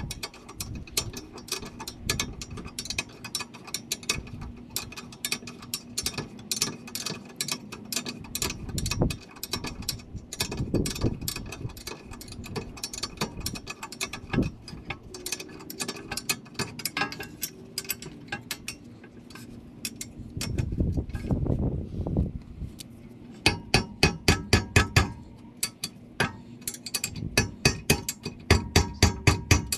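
Ratcheting wrench clicking in quick runs as the rear brake caliper mounting bracket bolts are run in, getting louder and faster, about five clicks a second, in the last several seconds.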